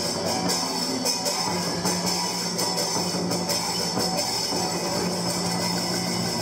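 Live traditional Vietnamese ensemble music with plucked strings and drums, and frequent sharp clicks over it.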